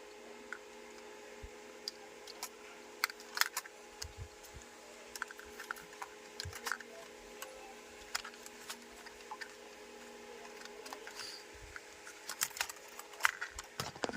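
Scattered light clicks and taps, a few at a time, over a faint steady hum, with a quicker run of clicks near the end.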